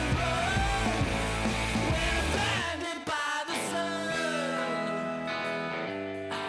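Background rock song with a sung vocal over drums and bass. About two and a half seconds in, the drums and bass drop out, leaving lighter held chords.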